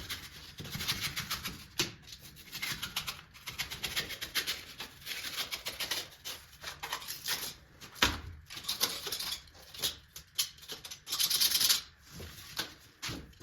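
Dried glue being scraped off with a hand tool: quick scratchy strokes in bouts with short pauses, loudest about eleven seconds in.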